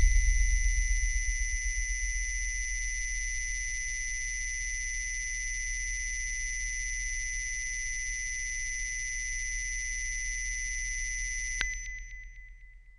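Synthesized electronic test tones: a deep low hum-like tone under a cluster of steady high-pitched tones, easing slightly in loudness over the first few seconds. Near the end the high tones cut off abruptly with a click, and the low tone fades away.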